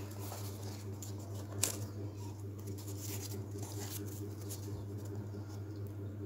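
Hands picking up and turning over a small cardboard box with a solar panel on it: scattered scrapes, rubs and light knocks, with one sharp click about one and a half seconds in, over a steady low hum.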